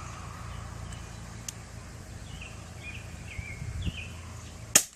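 Birds chirping over a steady low background rumble. Near the end comes a single sharp pop: a CO2-powered Umarex XBG .177 BB pistol firing one shot.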